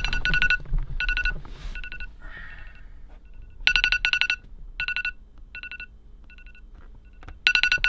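Smartphone alarm ringing: a high electronic tone in short clusters of rapid pips, repeating roughly once a second, some clusters louder than others.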